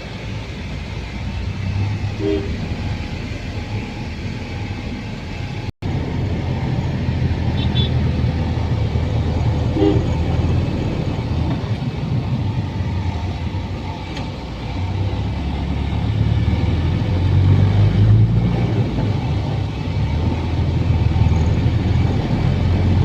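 Steady low engine rumble of a vehicle running, with a few brief horn-like toots.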